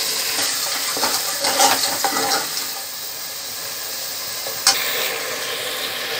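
Mutton pieces sizzling as they fry with browned onions in an aluminium pressure cooker, a steel ladle stirring and scraping through them against the pot in the first couple of seconds; one sharp clink a little past the middle.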